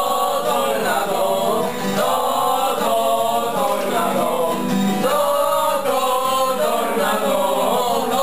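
Group of young male voices singing a ballad together to a strummed acoustic guitar.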